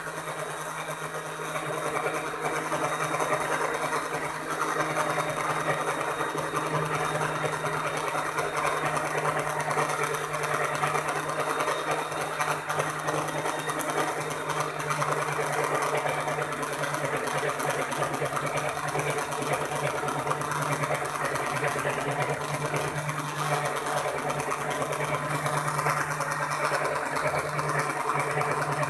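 Electric blender motor running steadily with its lid on, a constant hum under a dense whirring noise, blending whole eggs with salt, sugar, garlic, black pepper and vinegar: the first stage of mayonnaise, before any oil is added. It gets a little louder about two seconds in.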